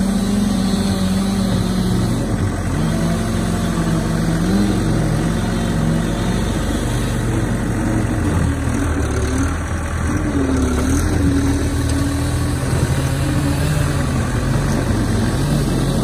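Case skid steer's engine running hard beside the truck, its pitch rising and falling as the machine works its bucket.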